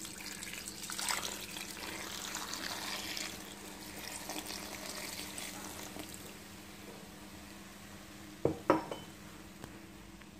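Liquid poured into a hot stainless-steel pot of browned chicken pieces, hissing loudly for the first few seconds and then settling into a softer, steady bubbling. Two sharp knocks come near the end, over a low steady hum.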